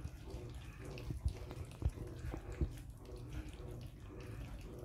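A litter of month-old American Staffordshire terrier puppies lapping and chewing wet mash from one shared plate: wet slurping and smacking with scattered sharper clicks, over a low steady hum.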